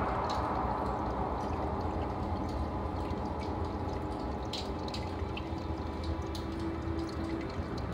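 Aquarium water running and bubbling steadily over a low hum, with small drips and pops scattered through.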